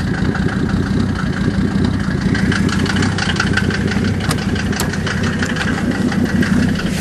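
Mercedes-Benz 300D 2.5 five-cylinder turbodiesel idling cold just after a cold start, with a steady, fast, even diesel clatter.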